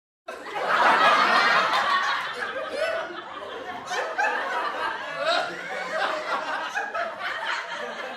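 Recorded laughter sound effect: people laughing, starting abruptly from silence a moment in, loudest for the first second or so, then going on as quieter, uneven chuckling.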